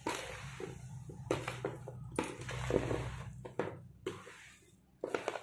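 A spoon stirring oily, spice-coated raw mango pickle pieces in a plastic tub: irregular scraping and clicking strokes over a low steady hum.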